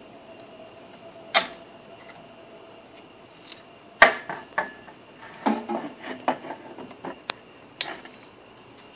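Knocks and clatter of an aluminium top-mount intercooler being lifted off a turbocharged engine: a sharp knock about a second and a half in, the loudest knock at about four seconds, then a run of smaller knocks and rattles.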